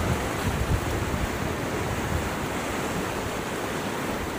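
Fast-flowing river rapids rushing steadily, an even wash of water noise, with uneven low rumbling from wind on the microphone.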